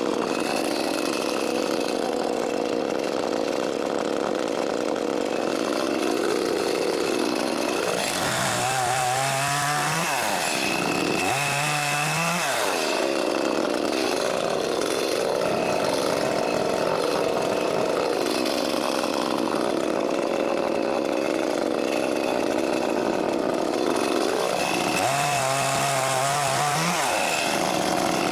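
Echo CS-310 chainsaw, a 30.5cc two-stroke, running hard while cutting into a tree stump at ground level. Its engine note sags and picks up again three times as the chain bites into the wood.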